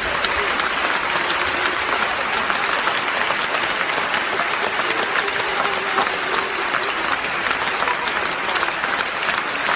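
Large audience applauding steadily, many hands clapping at once in a dense, unbroken patter.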